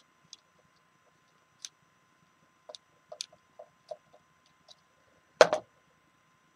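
Scattered light clicks and taps of small parts being handled on a workbench during switch wiring, with a louder double knock about five and a half seconds in.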